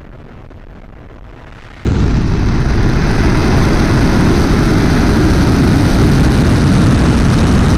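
Heavy-lift rocket engines firing at launch: a loud, deep, steady noise comes in suddenly about two seconds in and cuts off abruptly at the end. Before it there is only a faint hiss.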